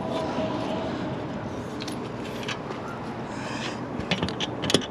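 A few light metallic clicks near the end, from a pop rivet and hand rivet gun being handled and set in a freshly drilled 1/8-inch hole, over a steady background hum.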